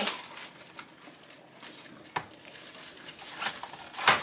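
Quiet handling of a plastic Dash Safe Slice mandoline slicer as a setting on it is flipped. There is one sharp click about two seconds in, and a few soft knocks near the end.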